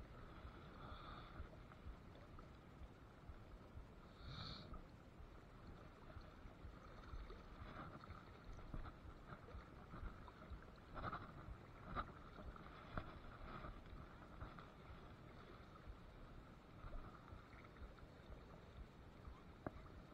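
Faint flowing river water with a low rumble, broken by occasional small splashes and knocks, the sharpest a little past the middle.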